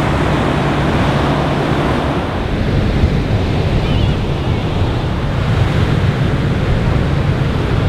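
Ocean surf breaking and washing up a sandy beach, a steady rushing noise, with wind rumbling on the microphone.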